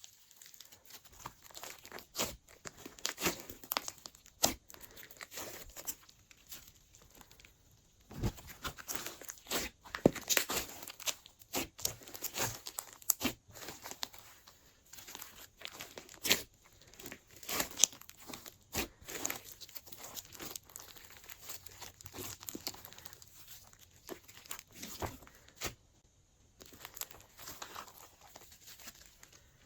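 Glossy slime being squished and stretched by hand, giving a run of irregular sticky clicks, pops and crackles with brief pauses between handfuls.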